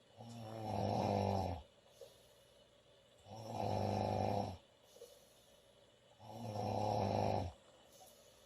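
A woman snoring loudly: three long snores, each a little over a second, about three seconds apart, each with a low buzzing pitch.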